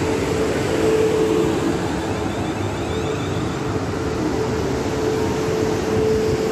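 South Western Railway Class 450 Desiro electric multiple unit pulling into the platform close by, its wheels and running gear making a steady rumble with a humming tone over it.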